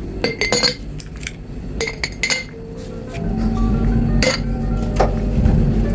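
Glassware clinking several times, sharp ringing taps of glass on glass or dishes. A low steady rumble comes in about halfway through.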